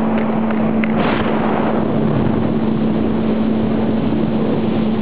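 Two-stroke jet ski engine running at a steady speed, a constant drone over the rush of water, with a brief swell of spray noise about a second in.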